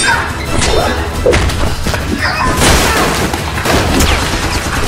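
A dense mix of added action sound effects, crashes, thuds and booms coming in quick succession, with music under them.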